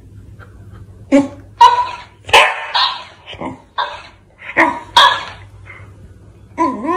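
Shiba Inu giving short barks and yips, about eight in quick succession, then a drawn-out wavering whine starting near the end.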